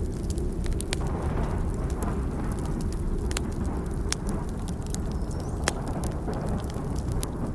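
A burning log crackling, with scattered sharp pops, over a continuous deep rumble of distant thunder that swells about a second in.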